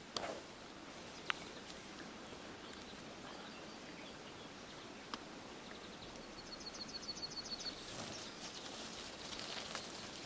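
Faint pasture ambience with a few scattered clicks, a short rapid high-pitched trill of about a dozen ticks a little past the middle, and irregular rustling and crackling in the last couple of seconds.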